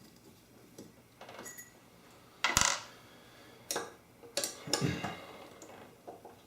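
Metal faucet parts clinking and knocking as the handles of a two-handle Moen kitchen faucet are worked loose and pulled off. About eight separate sharp clicks, the loudest about two and a half seconds in.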